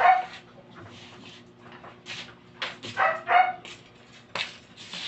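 A puppy giving several short, high yaps and barks, spaced about a second apart.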